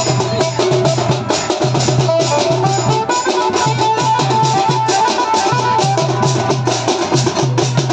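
Koraputia band-party music played loud in a khemta baja mix. A Casio keyboard melody of short stepped notes runs over a steady repeating bass pattern and dense drumming.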